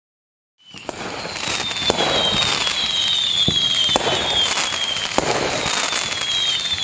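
Fireworks sound effect marking the end of the countdown: it fades in about half a second in, then a continuous barrage of crackling bangs, about one sharp crack a second, with repeated falling whistles.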